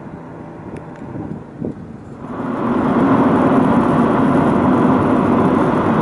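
Road and engine noise of a moving vehicle heard from inside the cabin: a steady noisy hum that swells much louder about two seconds in and then holds steady.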